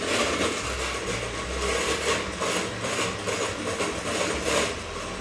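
Electric hand mixer running, its beaters whipping cold heavy cream in a bowl; the sound swells and fades about twice a second as the beaters move through the cream.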